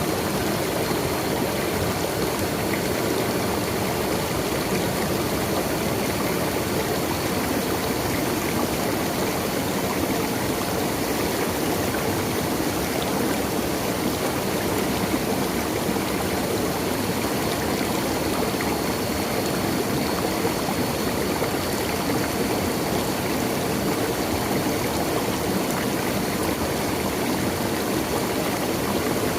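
Natural running water flowing steadily, an even, unbroken rushing sound.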